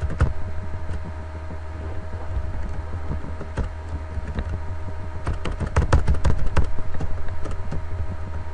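Typing on a computer keyboard: irregular key clicks, thickest about five to seven seconds in, over a steady low electrical hum.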